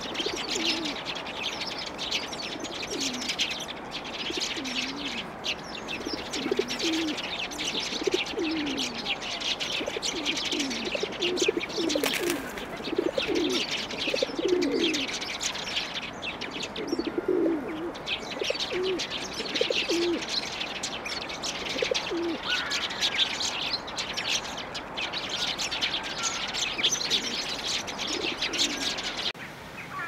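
Eurasian tree sparrows chirping continuously in a dense twittering chorus, with short lower-pitched calls sounding now and then underneath. The chorus stops abruptly just before the end.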